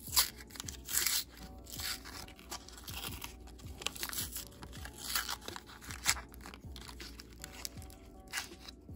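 Paper wrapper of an ice cream cone crinkling and tearing as it is peeled off by hand, a run of short crackly rustles, over soft background music.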